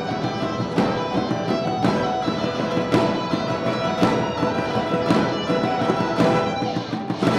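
Wind ensemble playing a Christmas arrangement: sustained band chords with sharp accents about once a second.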